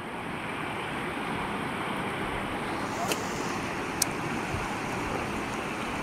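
Shallow mountain river rapids rushing steadily over rocks, with two faint clicks about three and four seconds in.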